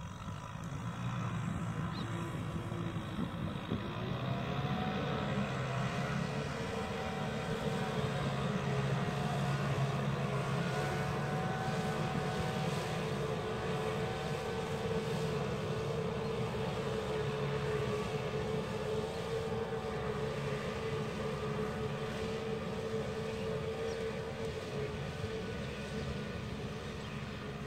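Tractor engine running steadily under load while ploughing a wet paddy, a steady drone with a held, slightly wavering tone that swells a little a few seconds in and eases off near the end.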